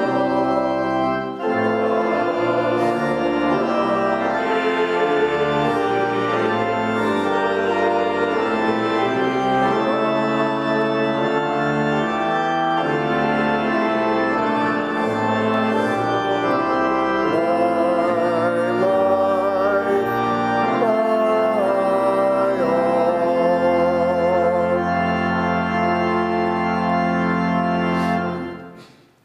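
Church organ playing a hymn in full sustained chords, ending on a long held chord that stops abruptly about a second before the end.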